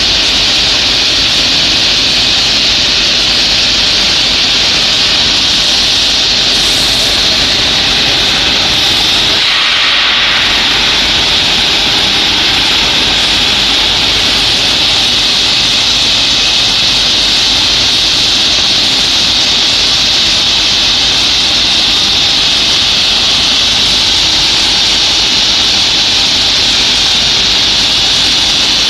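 Hanger-type shot blasting machine running with steel profiles passing through: a loud, steady hissing roar of the blast wheels and steel shot striking the parts inside the rubber-curtained chamber.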